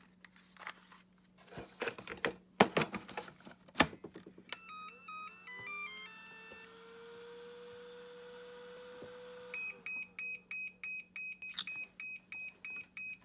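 Clicks and knocks of handling, then an electronic device beeping: a short run of stepped tones, a steady held tone, and then a fast even series of beeps, about three a second.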